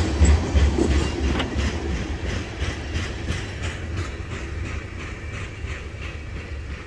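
Freight train of loaded tank cars rolling past, wheels clacking over rail joints with a low rumble, fading steadily as the end of the train moves away.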